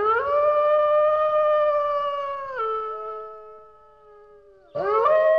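Wolf howling: a long howl that rises, holds, then drops in pitch a little past halfway and fades, with a second howl starting near the end.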